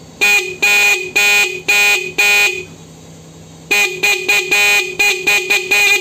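Repaired motorcycle electric disc horn sounding in short beeps as current is switched on and off: five beeps in the first few seconds, then a quicker run of about nine near the end, all on one steady pitch. It sounds quite loud, its adjusting screw just set after the repair brought the dead horn back to life.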